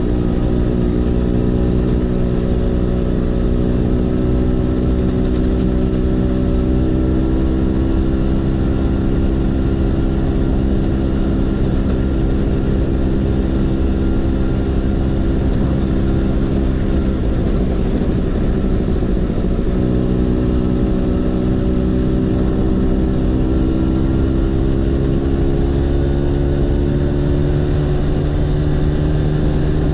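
Vespa PX 150's single-cylinder two-stroke engine running through a DRC Victory Racing aftermarket exhaust. The engine holds a fairly steady note that drifts slowly in pitch. The note blurs briefly a little past halfway, then comes back and rises gently.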